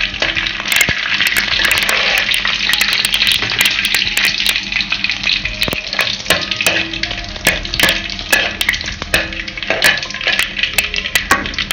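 Dried red chillies and mustard seeds frying in hot oil during tempering: a steady sizzle dotted with many sharp crackling pops. A steel ladle stirs them around the pan.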